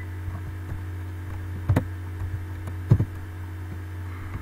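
Steady low electrical hum from the recording setup, with two short clicks about a second apart.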